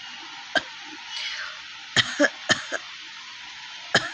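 A person's short, dry coughs from a real cough, not a chesty cold cough: one about half a second in, a quick run of four about two seconds in, and another near the end.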